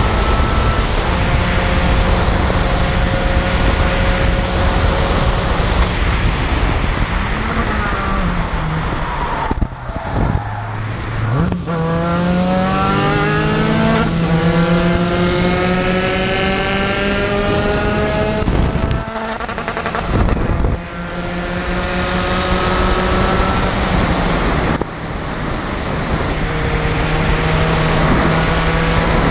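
Onboard sound of an SRF3 race car's four-cylinder engine at racing speed, its pitch rising through the gears and dropping at each shift. About a third of the way in the revs fall sharply as the car slows, then climb in a long pull, with further upshifts near the middle and later.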